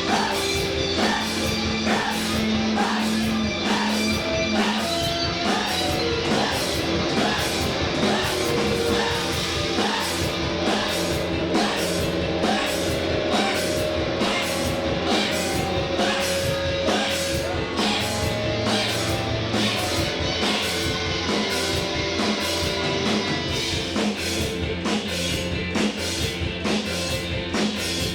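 Live indie rock band playing a song: drum kit keeping a steady, even beat under held guitar notes.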